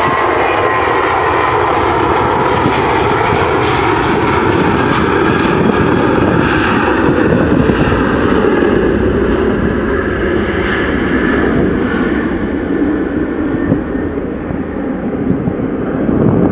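Airbus A320-family twin-jet airliner's turbofan engines at takeoff thrust through the takeoff roll and climb-out. It is loud and steady, with a whining tone at the start that fades. The noise swells around the middle and eases a little near the end as the jet climbs away.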